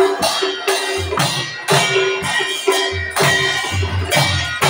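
Live percussion music for a dance: clashing hand cymbals about twice a second, with deep drum beats joining about a second in, over a held note.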